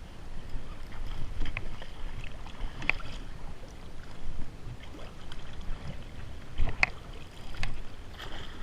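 Water sloshing with wind buffeting the microphone, broken by a few short sharp knocks or splashes.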